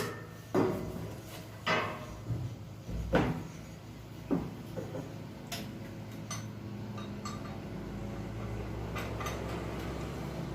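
Metal tools and parts clanking and knocking in the engine bay as the old filter housing is worked on: five sharp clatters in the first four or five seconds, then lighter scattered ticks. A low steady hum rises in the background in the second half.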